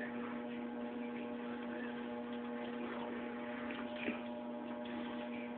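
Steady electrical hum with a faint background hiss, and a single faint tick about four seconds in.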